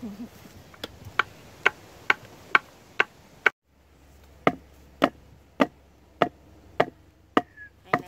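Wooden board pounding a forked wooden stake into the ground: sharp wooden knocks about two a second, with a short gap about three and a half seconds in.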